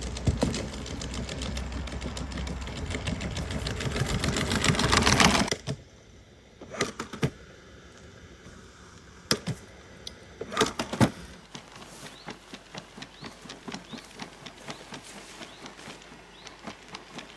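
Four-legged robot dog walking: rapid mechanical clicking and whirring from its leg motors, loud and building for the first five seconds before cutting off abruptly, then quieter, with a few sharp clicks and a run of light ticks as it steps through the grass.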